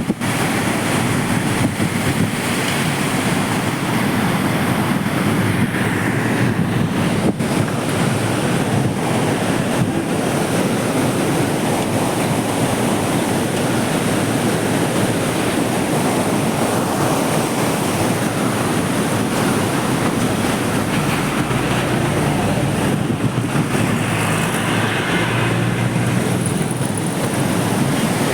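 Water rushing through the open gates of a river barrage in strong release: a loud, steady rush of churning water.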